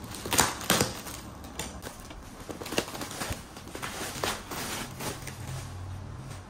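A parcel being handled and unwrapped: scattered rustling with irregular clicks and a few sharp knocks, the loudest about half a second in.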